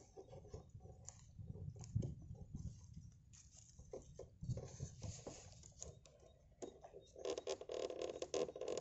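Light rain pattering on flooded water, with irregular small clicks and splashes. About seven seconds in, a louder rapid rattling starts.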